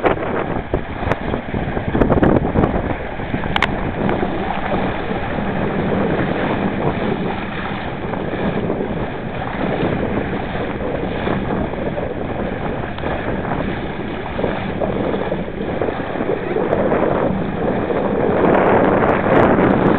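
Wind buffeting the microphone and water rushing and splashing along the hull of a Laser sailing dinghy under way. There are a few sharp clicks in the first few seconds, and the rush grows louder near the end.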